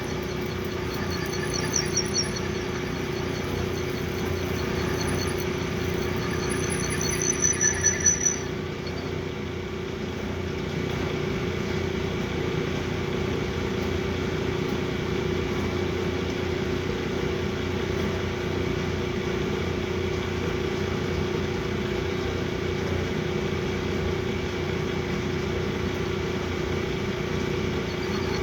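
Metal lathe running with a steady hum. For the first eight seconds or so a high-pitched squeal comes and goes in short pulses, from the cutting tool on the workpiece, then only the steady running remains.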